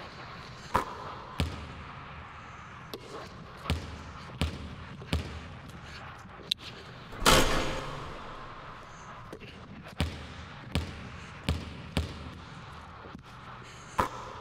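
Basketball dribbled on a gym floor: a run of sharp bounces, one every second or less. About seven seconds in, a shot strikes the hoop with a louder, longer crash, and then the bouncing picks up again.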